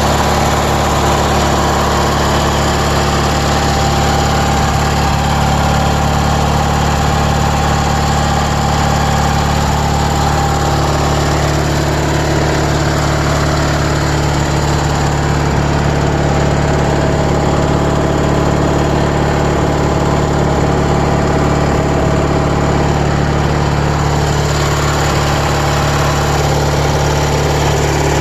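Engine of a 1997 MTD Yard Machines lawn tractor running steadily at an even speed, with a constant low hum.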